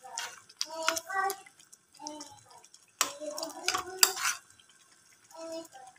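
Metal spoon stirring soup in a metal pot, scraping and clinking against the pot several times, with the loudest clinks about three and four seconds in. A voice is heard briefly in the background.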